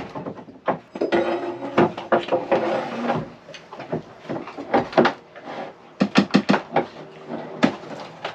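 Knocks, clunks and creaks of wood as a pry bar works at the old wooden countertop around a boat's built-in icebox fridge. The sharp knocks come in uneven clusters.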